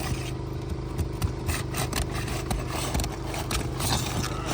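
Scraping and clicking of a pry tool working under roof shingles to loosen them, with short sharp clicks scattered throughout. A steady engine-like hum runs underneath.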